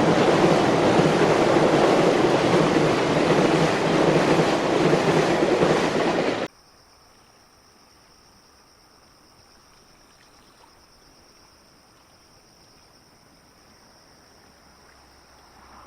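Freight train passing close by, a loud steady rumble and rush of wheels on rails that cuts off suddenly about six and a half seconds in. After that there is faint, steady, high-pitched insect chirring.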